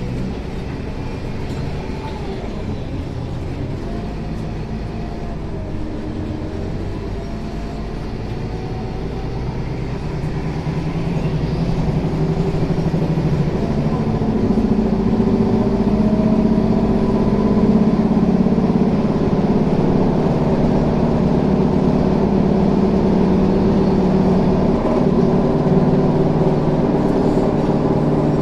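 Scania K360 bus engine running, with a wavering higher whine over it for the first several seconds; about eleven seconds in, the engine note rises and grows louder as it takes load, then holds steady.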